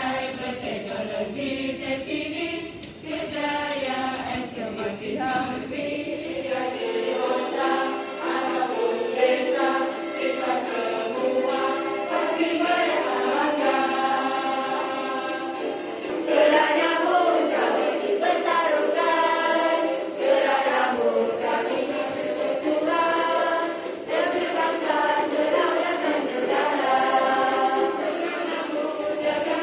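A group of schoolgirls singing a patriotic song together, with long held notes. The sound changes abruptly about six and a half seconds in, as a new recording takes over.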